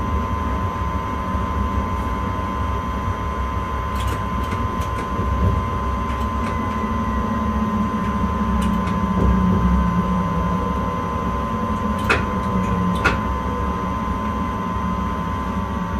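Inside the driver's cab of a moving intercity train: a continuous low running rumble, with a steady electrical hum from the cab equipment and a few sharp clicks.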